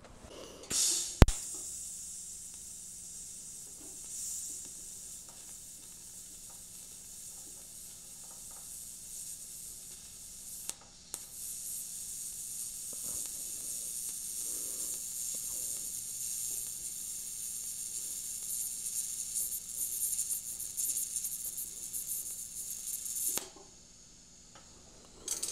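TIG welding arc from a YesWelder TIG 250P on a stainless steel lap joint, a steady high hiss. The arc strikes with a sharp crack about a second in, drops out briefly about halfway through, and cuts off suddenly a couple of seconds before the end.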